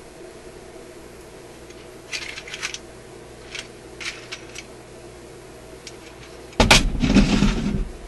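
Small parts and tools being handled on a workbench: scattered light clicks and clinks, then a louder clattering rustle with a thump lasting over a second near the end.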